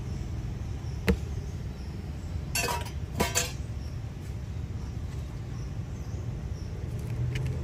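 A plastic cup of iced coffee is handled and set down on a counter: a sharp knock about a second in, then ice clinking and rattling in the cup for under a second in the middle, over a steady low background rumble.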